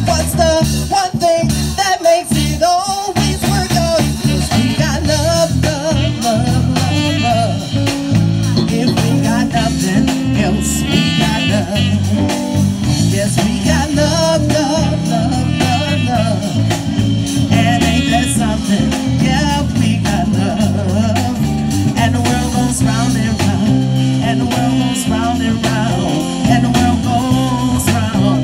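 Live band playing through a PA: drum kit, electric guitars and saxophone keeping a steady groove, with a woman singing over it.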